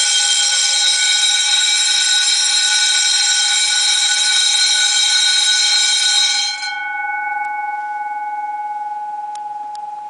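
Electric vibrating school/fire bell ringing continuously after being switched on by a programmable timer, starting abruptly. About six and a half seconds in the striker stops and the gong rings on, fading slowly, with a couple of faint clicks near the end.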